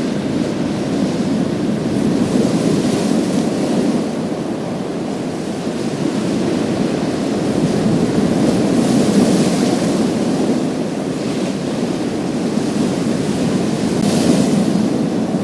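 Sea waves washing onto a pebble beach: a steady surf, with a brighter hiss swelling up three times, near the start, about nine seconds in and near the end.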